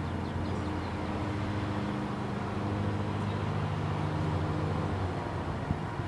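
Steady low hum of an engine running at a constant speed, which fades out about five seconds in.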